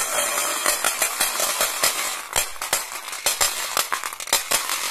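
Glass marbles rolling down a wooden zigzag slope track and dropping into a stainless-steel bowl of marbles: a continuous rolling rush packed with rapid clicks and clinks of marble striking marble and metal.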